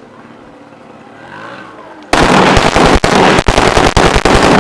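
AK-47 assault rifle firing a long burst of automatic fire, starting about two seconds in and lasting about two and a half seconds, with a few brief breaks. The shots are very loud.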